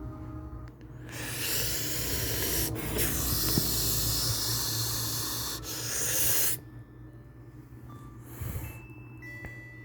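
An iPhone 6s speaker playing one of its built-in ringtones or alert tones: a loud hiss for about five seconds with two brief breaks. It ends abruptly, then comes a short whoosh and a few short high beeps near the end.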